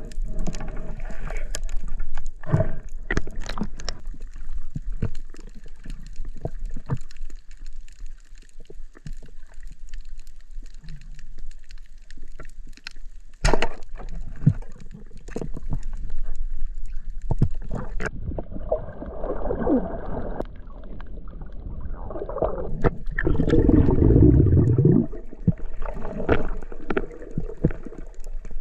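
Underwater sound through an action camera's waterproof housing: muffled water movement and bubbling with many scattered clicks and knocks. A single sharp, loud knock comes about halfway through, and a louder stretch of rushing, bubbling water follows later.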